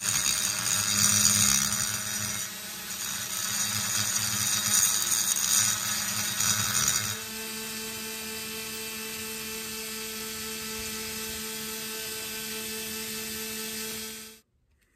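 Small high-speed rotary tool with a burr grinding inside the port of a Homelite Super XL chainsaw cylinder, porting it. It is loud and scratchy for about seven seconds, then turns quieter and steadier as a plain whine, and cuts off shortly before the end.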